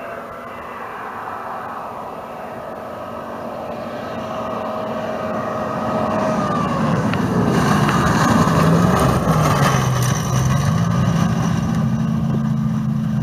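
Rally car racing along a gravel stage, its engine growing louder as it approaches and loudest as it passes. The engine pitch drops about six seconds in, then rises and falls several times as the car drives by, with gravel and tyre noise around it.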